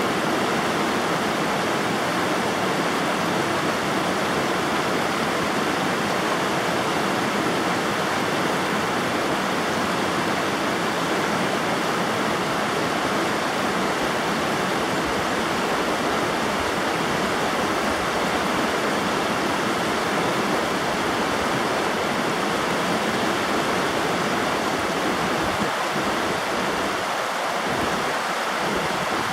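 River water rushing steadily, an even, unbroken rush of flowing water.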